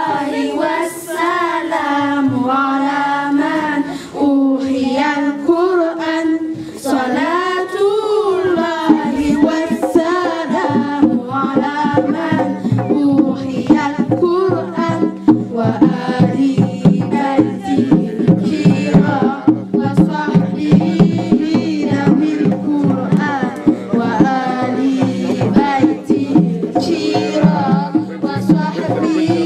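A group of girls singing a devotional song together into microphones, voices alone at first; about ten seconds in, a steady drum beat joins under the singing.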